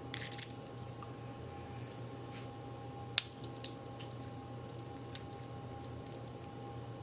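Small metal pins from a Sparrows practice lock being tipped out and handled on a hard surface. There is a brief rattle at the start, then one sharp metallic click about three seconds in, followed by a few lighter ticks.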